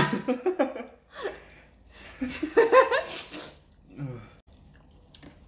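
A woman laughing: a loud burst right at the start and a second burst of laughter about two seconds later.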